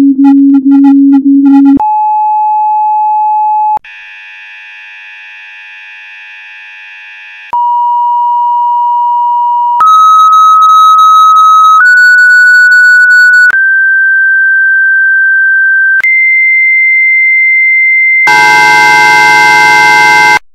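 Synthesized electronic alert tones for a mock Emergency Alert System broadcast. A low pulsing beep comes first, then a run of steady pure tones, each held about two seconds and mostly stepping higher in pitch, with a quieter buzzy chord after the second tone. It ends in a loud, harsh many-tone blare that cuts off suddenly.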